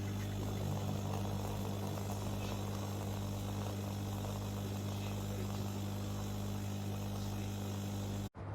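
A steady low buzzing hum, broken by a momentary dropout near the end.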